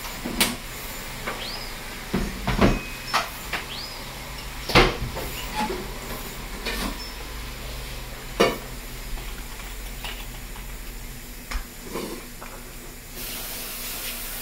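Irregular knocks and clicks, some with a dull thump, over a low steady hum, with two short rising squeaks in the first four seconds and a steady hiss coming in near the end.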